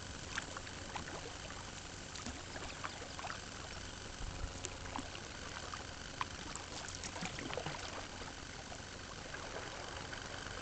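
River water lapping and dripping around a kayak: a scatter of small splashes and drips, busiest in the middle, over a steady rushing background.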